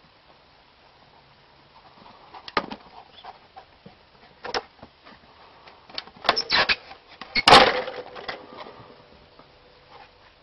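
Wooden knocks and clatter from a ball-launching machine as a dog treads on its plank lever: single knocks a few seconds apart, then a rapid cluster that ends in the loudest thump about seven and a half seconds in.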